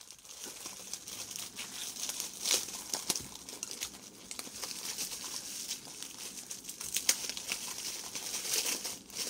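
Thin clear plastic bag crinkling and crackling as hands twist its gathered top and wind a rubber band around it, with a few louder crackles along the way.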